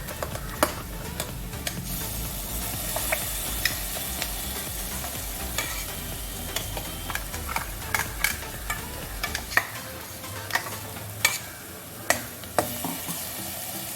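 Ground green chilli chutney frying in a kadai of hot oil tempering, with a steady sizzle, while a spoon stirs it and scrapes the pan in irregular clicks and knocks. It is being stirred until the oil separates.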